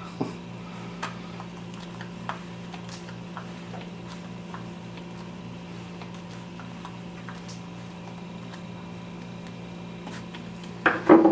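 Faint, scattered light clicks of a screwdriver and small parts being handled while screws on a Remington 870 shotgun stock are tightened, over a steady low hum. A brief, louder voice-like sound comes near the end.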